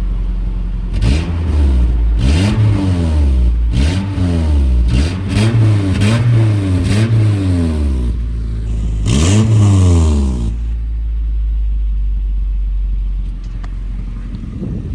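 Nissan pickup truck engine idling, then revved in a run of about seven quick blips before dropping back to a steady idle. It runs smoothly on a new spark plug wire for cylinder one, which cured the misfire caused by the broken old wire.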